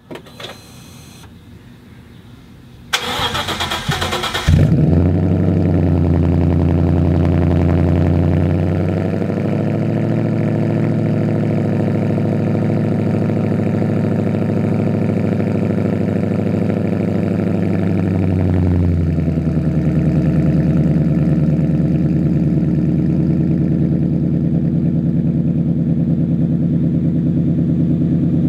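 2015 Mustang GT's 5.0 V8 through an SLP Loud Mouth muffler delete: the starter cranks about three seconds in, the engine catches with a flare about a second and a half later and runs at a raised idle. Near nineteen seconds it settles to a lower, steady idle.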